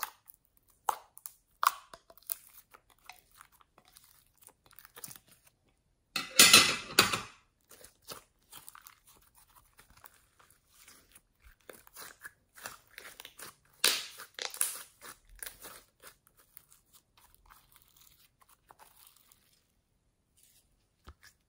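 Glossy slime poked, squeezed and stretched by hand: irregular sticky clicks and pops, with two dense, loud crackly stretches about six seconds in and again around fourteen seconds.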